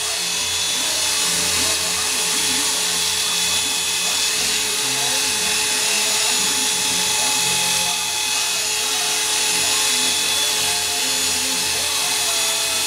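Electric hair clippers buzzing steadily as they run over a scalp, shaving hair down to stubble.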